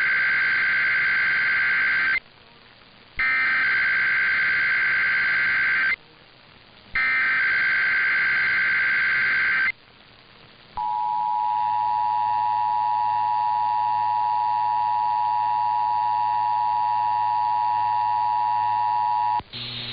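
Emergency Alert System data header: three raspy digital bursts with about a second's gap between them. About 11 seconds in, the steady two-tone EAS attention signal of 853 and 960 Hz starts and holds for about eight and a half seconds, marking the start of an alert.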